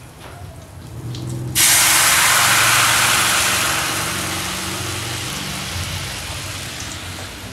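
Coconut cream poured into a hot frying pan of ginger: a sudden loud sizzling hiss starts about one and a half seconds in, then slowly fades.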